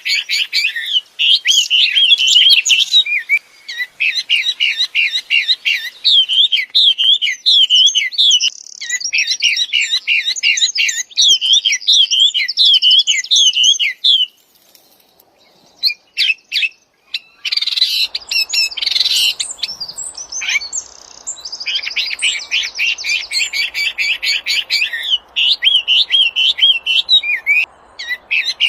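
Wambi songbird singing loudly in fast runs of high, repeated chirps and trills, pausing for a few seconds about halfway through.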